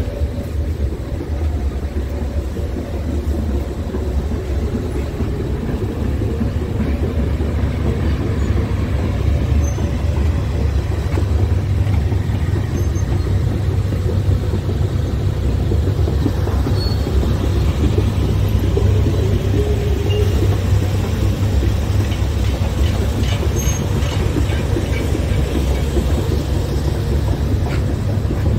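Diesel engine of a Scania S tractor unit idling, a steady low rumble.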